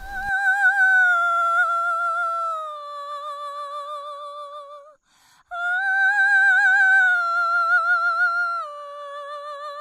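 A woman singing unaccompanied in a very high voice with vibrato: two long held phrases, each stepping down in pitch, with a short break for breath about five seconds in.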